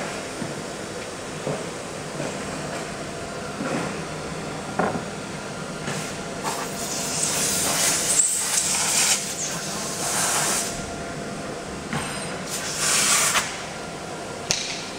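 CNC router machinery running: a steady machine hum with scattered knocks, and two bursts of hissing, a long one of several seconds in the middle and a shorter one of about a second near the end.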